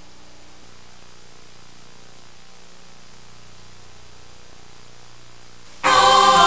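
Steady hiss and low mains hum of a VHS tape transfer, then loud music starts suddenly near the end.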